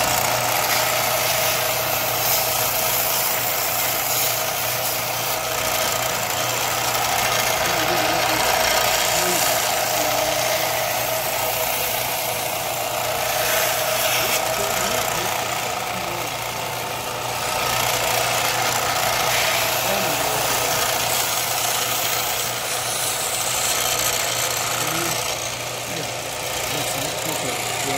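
Belt grinder running steadily, its abrasive belt grinding the steel of a knife blade, with a constant motor hum under the grinding hiss.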